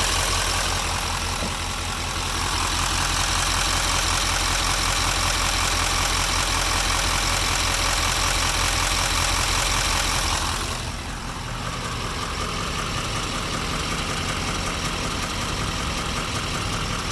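GMC LML Duramax 6.6-litre V8 turbodiesel idling steadily with a clicking/knocking that injector cleaner has not cured; its cause is unknown to the owner. About ten seconds in the sound turns duller and a little quieter.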